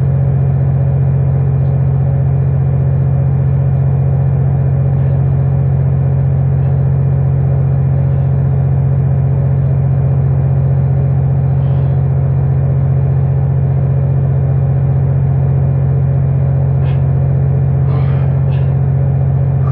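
Loud, steady low drone of a commercial fishing boat's machinery running.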